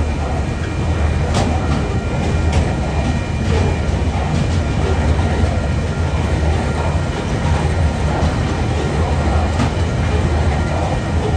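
Freight train of coal hopper wagons rolling past close by: a steady low rumble with scattered clicks as the wheels pass over the rail joints.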